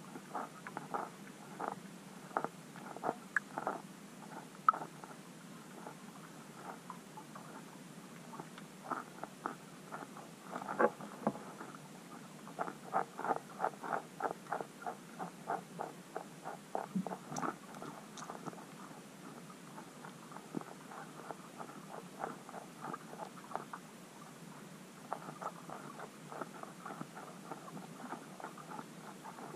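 Underwater sound picked up by a submerged camera: runs of rapid, soft clicks, several a second, that come and go. They are thickest in the middle and thin out for a while before picking up again near the end.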